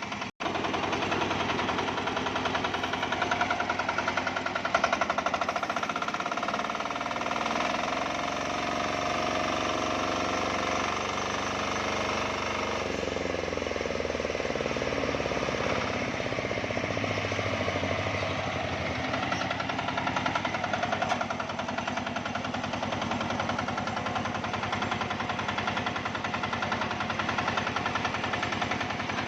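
Single-cylinder Matsumoto diesel engine running a homemade sawmill with a rapid, steady knocking beat. From about 7 to 19 seconds in, its pitch wavers and shifts while the saw works through a log under load.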